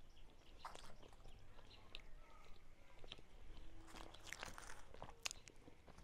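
Faint chewing and crunching picked up close on a clip-on microphone as fried puri is torn by hand and eaten, with scattered small crackles and clicks.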